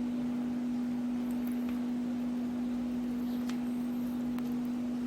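A steady low hum, with two faint clicks late on.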